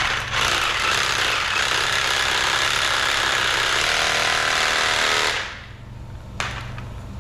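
Reciprocating saw fitted with a paint-shaker clamp, running hard for about five seconds and shaking a spray paint can, then stopping suddenly. A single sharp click follows about a second later.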